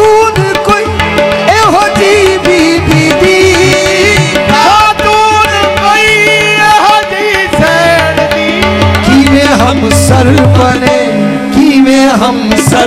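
Qawwali-style ensemble playing: harmonium and tabla keep up a steady beat and melody while a voice sings wordless, gliding runs over them.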